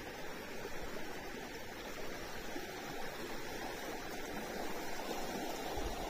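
Shallow, rocky river running over cobbles: a continuous, even rush of water.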